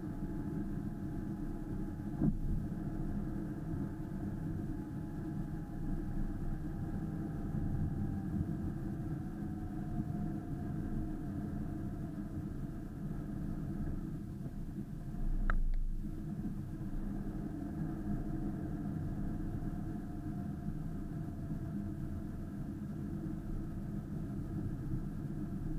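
Car engine and road rumble heard from inside the moving car, steady and low, with a faint engine note sliding slowly down in pitch over several seconds. Two short knocks stand out, about two seconds in and a louder one about fifteen seconds in.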